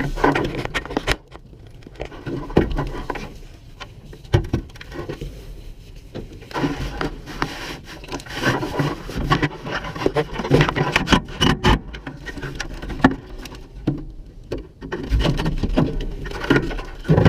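Irregular clinks, taps and scrapes of hand tools and small metal fasteners, from work on tightening a steering column's mounting screws and bolts.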